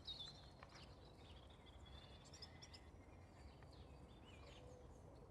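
Faint, scattered chirps and short calls of small birds over a low, steady background rumble.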